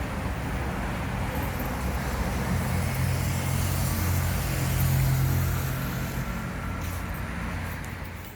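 Road vehicle noise: a steady engine hum with tyre and road noise that swells louder toward the middle and then eases off, like a vehicle passing by.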